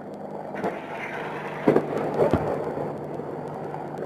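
Steady helicopter drone, with three dull thumps about two-thirds of a second, one and three-quarter seconds and two and a quarter seconds in.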